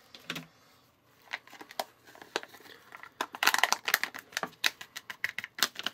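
Foil pouch of frosting mix crinkling and crackling in the hands as it is opened and its powder shaken out into a small bowl. The crackles start sparse and grow dense about halfway through.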